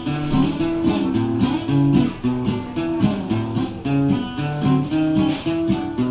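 Acoustic guitar strummed in a steady rhythm through chord changes, an instrumental passage of the song with no singing.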